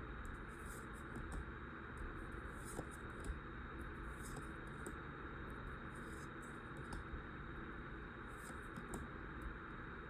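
Pokémon trading cards being handled and flipped through by hand: faint scattered rustles and soft scrapes over a steady hiss with a thin high tone.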